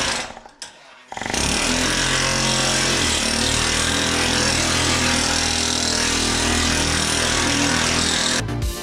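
Pneumatic planishing hammer running in a steady, rapid rattle as a welded steel dash panel is fed under it, smoothing the weld seams and working the crown back into the panel. A short burst opens, then the steady run starts about a second in.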